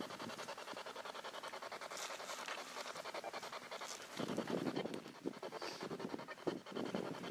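SB7 spirit box sweeping through radio stations: hiss chopped into a fast, even stutter, which gets louder and fuller about four seconds in.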